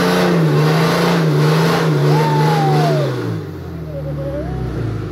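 2008 Dodge Ram's 6.7-litre Cummins inline-six turbo-diesel held at high revs during a burnout, rear tyres spinning. A short squeal comes about two seconds in, and a little after three seconds in the revs fall and the engine settles lower.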